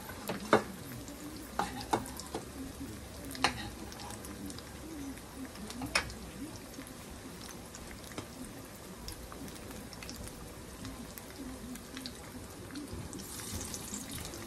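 Salmon croquettes sizzling steadily as they shallow-fry in oil in a frying pan, with a few sharp clicks of a utensil against the mixing bowl in the first half.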